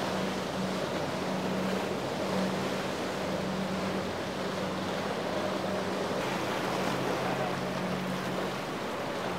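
Rushing surf and wind noise over the steady low drone of a boat's outboard motor running under way through choppy water.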